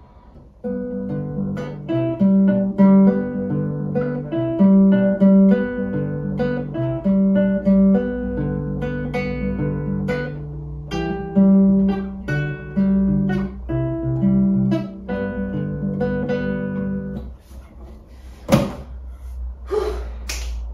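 Nylon-string classical guitar played fingerstyle, picked notes ringing over bass notes. The playing stops about three seconds before the end, followed by a few sharp knocks.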